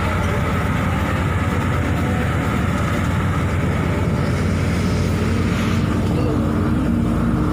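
Steady engine and road noise inside a moving bus, with a low engine hum throughout and a steadier hum coming in about two-thirds of the way through.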